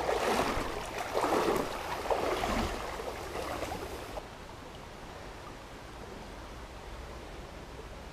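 River water splashing and sloshing in irregular bursts for about four seconds, then cutting off to a faint steady rush of water.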